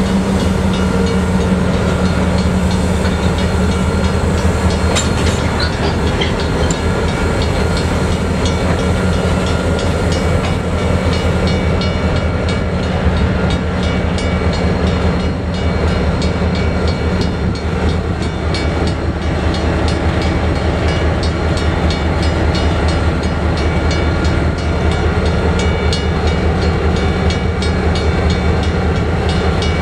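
Diesel-electric locomotive engine running steadily at close range, a deep, even hum with no pauses, as the locomotive creeps along the track.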